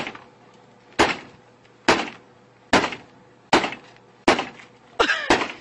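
Repeated hard blows of a bar against the front of a white Lexus car. There are about eight sharp impacts, each with a short ringing tail, a little under a second apart, with two coming close together near the end.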